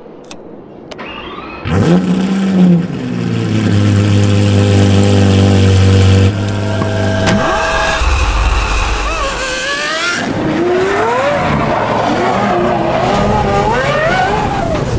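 Lamborghini Aventador SVJ's 6.5-litre V12 firing up about two seconds in with a sharp flare in pitch, then settling to a steady, loud idle. From about nine seconds on it revs up and down repeatedly while the tyres squeal as the car slides.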